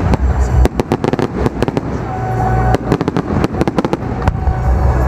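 Aerial fireworks display: a rapid, irregular string of sharp bangs and crackles over a low rumble.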